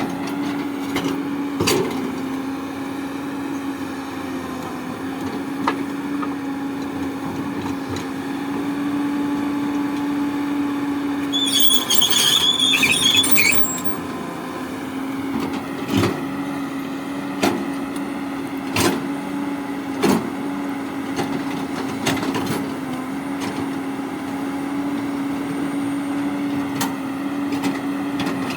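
Excavator's diesel engine running steadily, its pitch shifting slightly under hydraulic load, with sharp metal clanks now and then. A brief high squeal comes about twelve seconds in.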